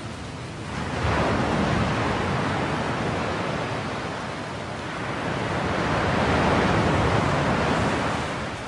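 A wash of rushing noise, like surf on a shore, that swells about a second in, eases off midway, swells again and falls back near the end.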